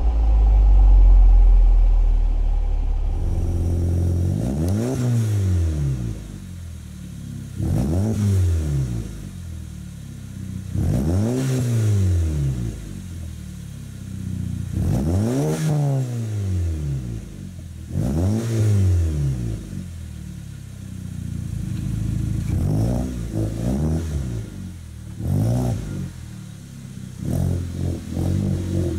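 A BMW M235i's turbo inline-six on a Remus axle-back exhaust runs for the first few seconds. Then a B7 Audi A4 with an APR Stage 2+ tune free-revs over and over, a few seconds apart, each rev rising and falling in pitch, with the last few revs shorter and quicker.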